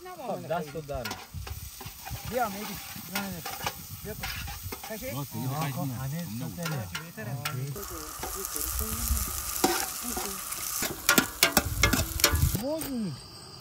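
A flat metal spatula stirring sliced onions frying in oil in a large aluminium pot: repeated squeaky scrapes across the pot's bottom over a sizzle. About halfway through, the scraping gives way to a few seconds of sharper knocks and clicks, and it returns near the end.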